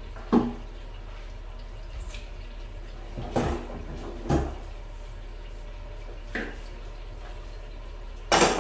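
A few scattered knocks and thumps as a person shifts and steps about on a tiled bathroom floor. Near the end comes a louder clatter of metal hand tools being rummaged in a plastic toolbox.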